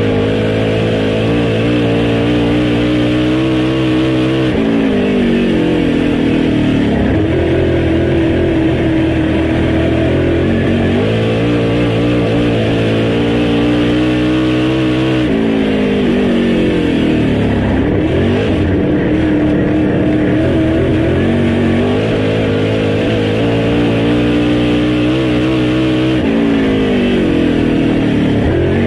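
Dirt super late model's V8 race engine at racing speed, heard from inside the cockpit: held high and steady down the straights, dropping in pitch three times as the driver lifts for the turns, then climbing again as he gets back on the throttle.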